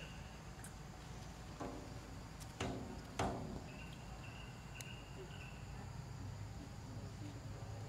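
Insects chirping in short repeated high notes over a steady background noise, with a few brief calls about two to three seconds in, the loudest near the middle.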